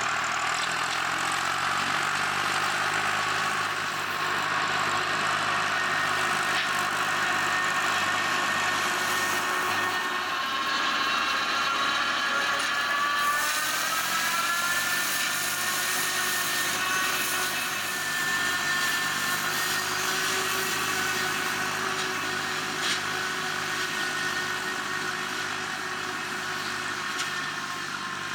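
Tractor-driven Remet F1-160 flail mower at work: the tractor engine and spinning flail rotor run steadily, with a whine that sags and rises slightly in pitch about halfway through.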